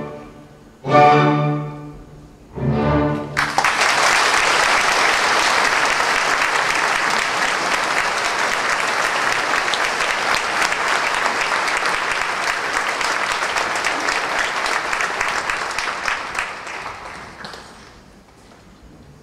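An orchestra closes a dance number with two short chords, then a theatre audience applauds, steady for about fourteen seconds before fading away near the end.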